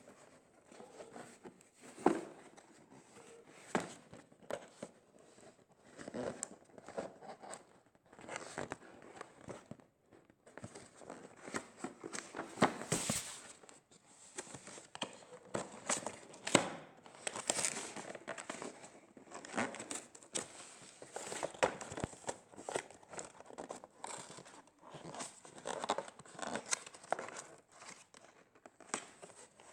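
Packaging being handled and unwrapped: irregular crinkling and rustling, with short knocks, loudest in flurries around the middle.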